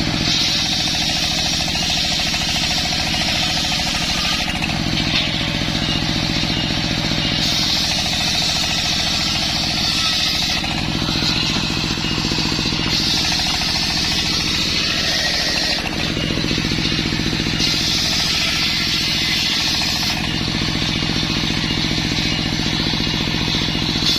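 Circular saw running steadily, its blade ripping through waru wood in repeated passes. Each cut is a few seconds of higher-pitched cutting noise over the machine's drone, coming about every five seconds.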